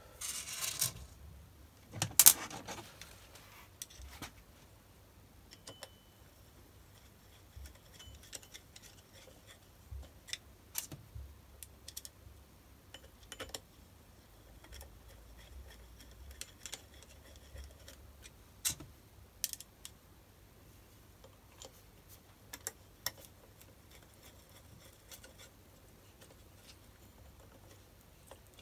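Metal clicks and clinks of hand work on a steel BS-0 dividing head: the indexing plate being seated and a screwdriver turning its centre screw. The taps come irregularly, with the sharpest two clacks near the start and lighter ticks after.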